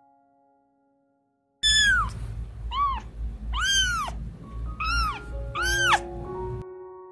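Kitten meowing five times in quick succession, each meow rising then falling in pitch, over a low background rumble. Soft piano music comes in about halfway through.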